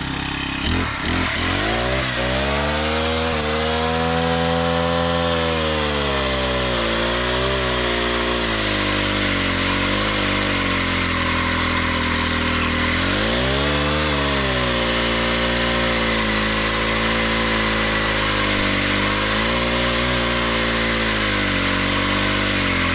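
Chainsaw cutting into a thick tree, running at full throttle, its engine pitch sagging under load and picking back up several times as the chain bites.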